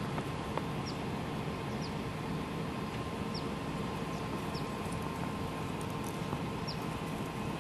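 Outdoor background of steady rumble and a faint constant hum, with a small bird giving short, high, falling chirps every second or two.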